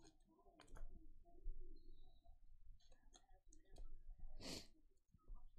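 Faint handling of trading cards: light clicks and rustles of card stock as cards are flipped and sorted by hand, with one louder brief swish about four and a half seconds in.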